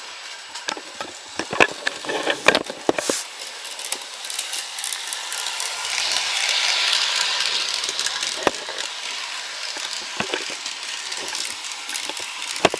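Battery-powered N gauge toy train running on plastic track: a steady whirring hiss from its small motor and wheels. A cluster of sharp clicks comes a couple of seconds in, and the sound swells around the middle as the train comes close.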